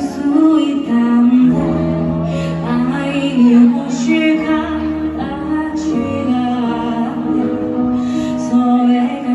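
A slow song playing loudly: a female vocal singing long held notes over sustained bass and accompaniment.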